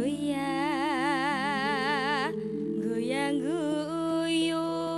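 Woman singer amplified through a PA, singing long held notes with wide vibrato and sliding pitch in a slow, free-rhythm Javanese vocal line (a bawa), over sustained keyboard notes with no drum beat. She breaks off briefly just past the middle, then slides up into the next phrase.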